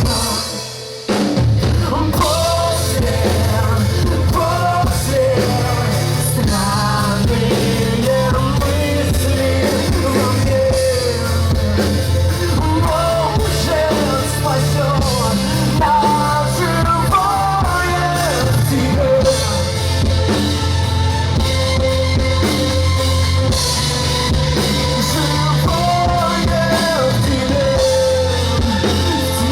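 Rock band playing live with drums and a sung lead vocal. The band drops out briefly about a second in, then comes back in full.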